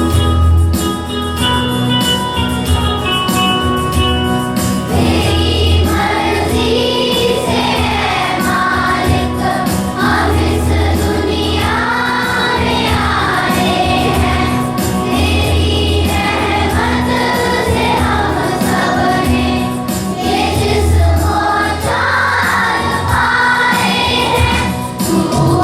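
A morning prayer song: a choir singing over instrumental accompaniment with a regular bass beat. The voices come in about five seconds in, after a short instrumental opening.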